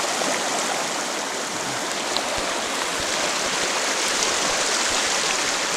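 Shallow river rapids rushing over rocks: a steady, even rush of fast-flowing water.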